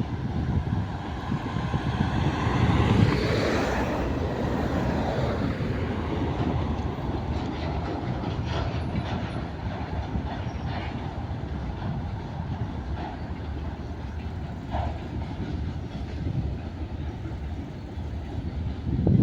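Freight train rolling past, loudest about three seconds in, then a steady rumble of wagons with light clicking of wheels over the rail joints.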